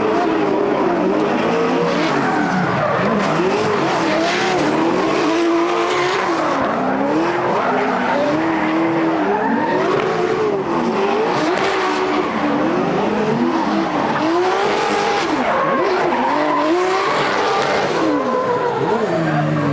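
Drift car engine revving up and down over and over, its pitch swinging every second or two, with tires squealing and skidding under a wide rush of noise; the engine settles to a steady note near the end.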